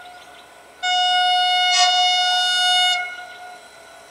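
Horn of a Vietnam Railways D20E diesel locomotive: one steady, single-pitched blast of about two seconds, starting about a second in and then fading away. It is blown as the locomotive approaches a level crossing.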